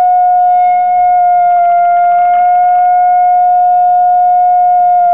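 Gauss meter's electronic alarm tone: one loud, steady, high-pitched note held continuously with slight wavers in pitch as the meter registers the magnetic field at the ear.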